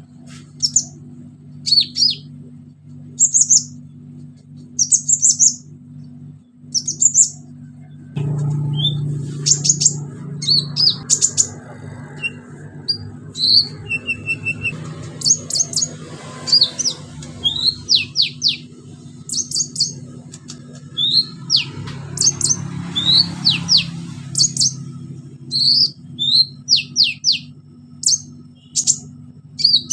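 Kolibri ninja sunbird singing in full voice: rapid clusters of thin, high chirps and quick downward-sweeping notes. A low steady hum runs underneath, with a rushing noise swelling in the middle.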